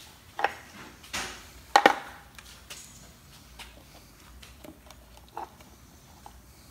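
Clicks and knocks of a metal jar lid and a jar of brake caliper grease being handled on a wooden workbench. The loudest is a sharp double knock a little under two seconds in, with fainter ticks and taps after it.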